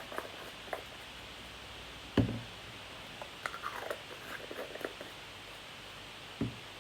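Light clicks and taps of small craft jars and tools being handled on a worktable, with a louder knock about two seconds in and another about six seconds in.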